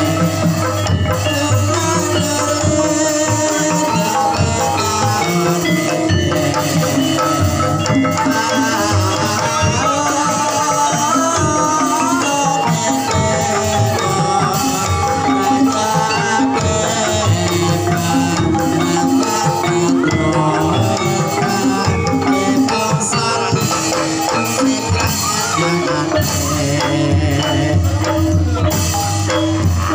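Live ebeg gamelan music, played without a break: bronze kettle gongs (bonang) struck over steady drumming.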